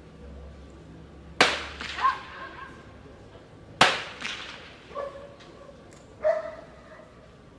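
Two blank gunshots about two and a half seconds apart, each a sharp crack with a short echo, fired during heelwork as the gun-sureness test for a Belgian Malinois. Three short pitched calls follow between and after the shots, the last one near the end.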